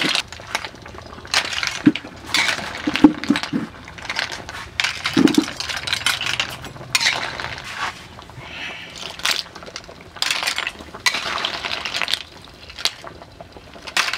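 Snail shells clinking and clattering against one another and against metal as they are scooped and stirred with a metal utensil between a basket and a wok, in irregular bursts every second or two.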